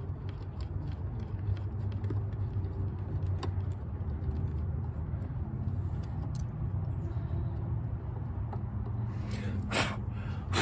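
Plastic trim clips and fasteners being worked loose by hand, with light scattered clicks and one sharper clack near the end, over a steady low hum.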